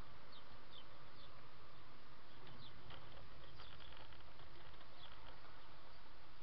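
Car driving, heard from a dashcam inside the cabin: a steady low road and engine rumble, with faint short high chirps scattered through it.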